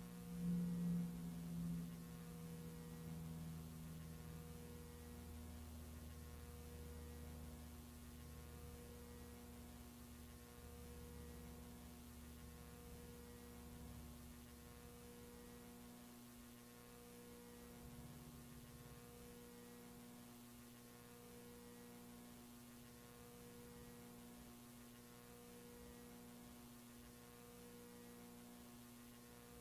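A low, steady electrical hum, with faint tones pulsing about every two seconds. A low rumble under it, loudest near the start, fades away about halfway through.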